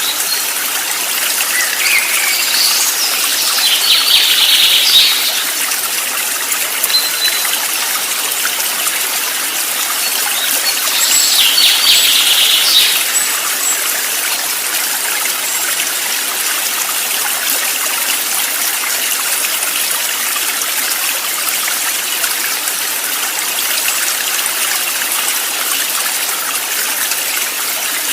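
Steady rush of flowing stream water, with a bird calling in quick trills twice, a few seconds in and again about twelve seconds in.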